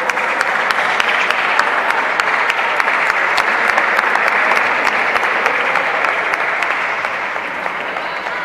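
Spectators and teammates clapping hard after a point is won in a table tennis match, dense and steady for several seconds, easing off near the end.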